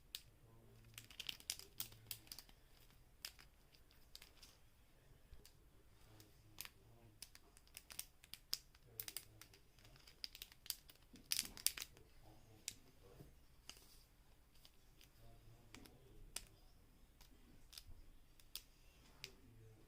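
Faint, irregular clicking of a Wacky Track fidget toy's plastic links as the chain is twisted and turned by hand, with a few sharper snaps.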